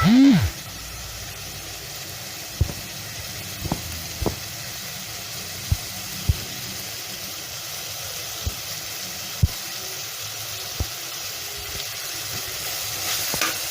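Ginger-garlic paste and vegetables frying in oil in a pan, a steady sizzling hiss. About eight sharp clicks and taps are scattered through it.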